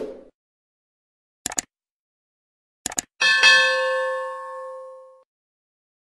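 Subscribe-button animation sound effects: a short whoosh, two quick pairs of mouse clicks about a second and a half and three seconds in, then a bright bell ding that rings and fades over about two seconds.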